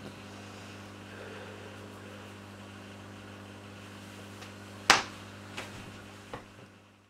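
A steady low electrical hum, with one sharp knock about five seconds in and two fainter knocks after it; the sound fades out near the end.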